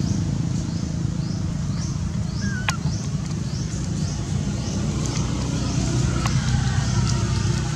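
Steady low rumble of a motor running. Above it, a small high chirp falls in pitch and repeats about twice a second.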